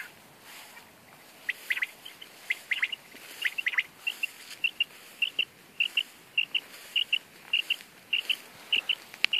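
A few scattered high chirps, then, from about four and a half seconds in, an even run of quick double beeps about every half second, all at one pitch. This is typical of a hunting dog's beeper collar in point mode, the signal that the English setter has stopped on point.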